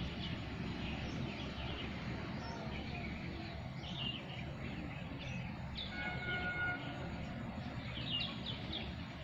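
Small birds chirping repeatedly over a steady low background rumble, with a brief held whistle-like tone about six seconds in.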